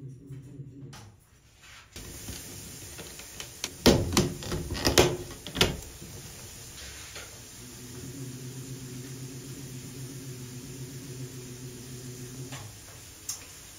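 Bathroom exhaust fan motor humming steadily, cutting out about a second in. Then a plastic grille cover is handled and pressed into place with a run of sharp clicks and knocks. The fan hums again for about five seconds and stops, followed by one more click.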